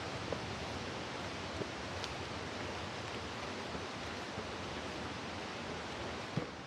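Steady rush of a large waterfall, Hotai Falls, heard as an even roar of falling water, with a few faint knocks.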